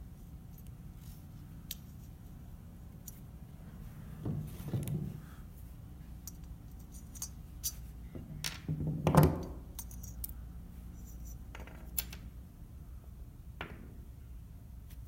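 Small metal clicks and clinks as a lawnmower carburetor is taken apart by hand, with two louder handling noises about four and nine seconds in, over a steady low hum.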